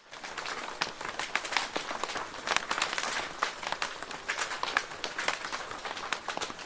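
Rain pattering on a plastic roof: a dense, steady spatter of countless small drop impacts, with sharper individual drips clicking through it.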